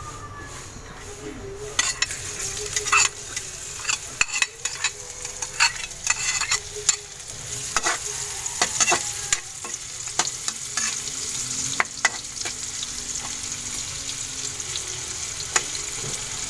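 Chopped garlic and onion sizzling in hot oil in a metal wok. The sizzle starts about two seconds in, and a metal spoon stirring them scrapes and clinks against the wok, thickly at first and more sparsely later, leaving a steady frying sizzle.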